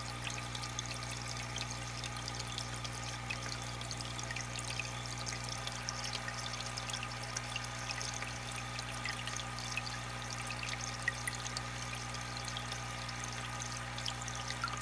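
Aquarium water trickling and pouring steadily, with many small drips and bubble pops over a steady low hum.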